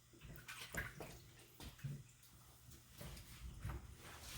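Faint bubbling of a pot of water at a rolling boil, with small splashes and light knocks as fresh lasagna sheets are lowered in.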